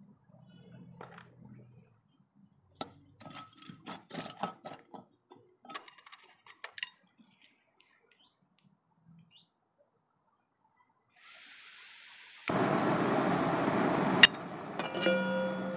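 Light metal clicks and clinks as a small backpacking stove is handled and screwed onto a gas canister. Near the end gas hisses from the opened valve, and about a second later the burner lights and burns steadily, louder than anything before, with one sharp click about two seconds after.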